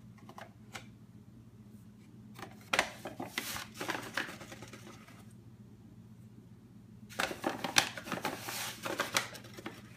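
Whole wheat flour being scooped out of a paper bag and tipped into a bowl. Paper rustling and scraping comes in two bursts, starting about two and a half seconds in and about seven seconds in.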